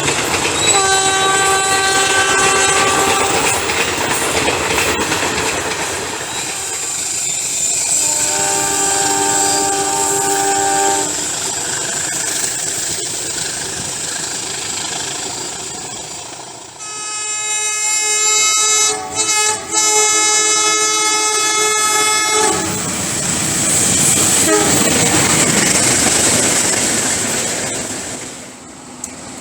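Railway locomotive horn sounding the Semboyan 35 signal, the Indonesian railways' horn signal. It gives three chord blasts: a short one near the start, another about eight seconds in, and a long one of about six seconds with a couple of brief breaks. Between them is the steady noise of a running train.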